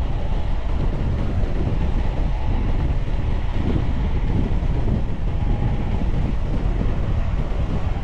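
Wind buffeting the camera microphone in a steady low rumble, as while riding a bicycle.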